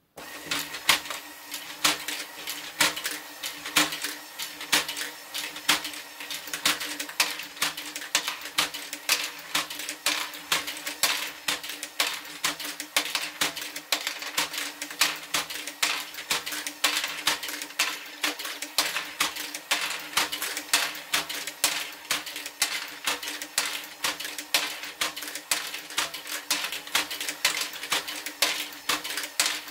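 LEGO Great Ball Contraption stepper zig-zag lift running: plastic balls and LEGO parts clatter in a dense, rhythmic stream of clicks, the louder ones about two a second. Under it runs a steady hum from the geared drive.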